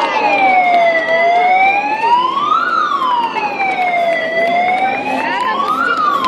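Emergency-vehicle siren wailing, sliding up and down in pitch with a peak about every three seconds, with scattered faint pops behind it.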